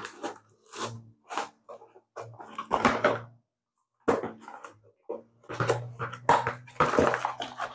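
Cardboard kit box being handled and its sealed end flap picked open: a string of short scrapes and rustles of cardboard and fingers, busier in the last couple of seconds.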